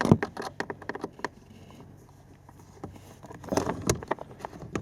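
Rapid small clicks and light knocks of a flathead screwdriver working out the last bolt of a car's blower motor assembly in its plastic housing. The clicking comes in two bursts with a quieter pause between.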